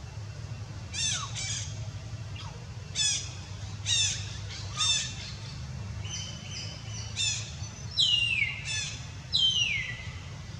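Baby long-tailed macaque giving a string of about ten high-pitched cries, each falling in pitch, the last few longer and sliding down. A steady low hum runs underneath.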